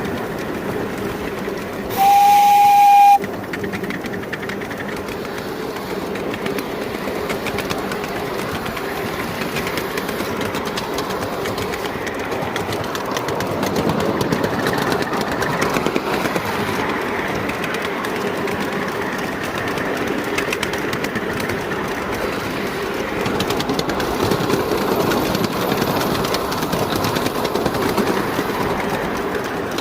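5-inch gauge live steam locomotive running, with one short whistle blast about two seconds in, lasting about a second. Around it runs the locomotive's continuous running noise with a fast, even rattle.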